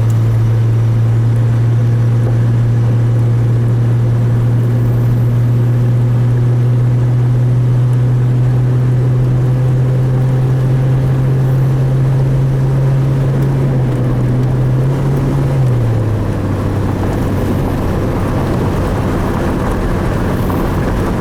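2002 Chevrolet Trailblazer's 4.2-litre inline-six pulling steadily on the road with one even drone, its pitch dropping a little near the end. It runs smoothly with the cylinder 3 misfire cured.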